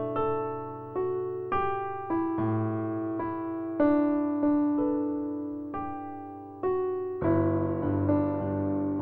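Background music: a slow, gentle piano melody of single notes struck and left to ring, turning into a quicker, busier pattern of repeated notes about seven seconds in.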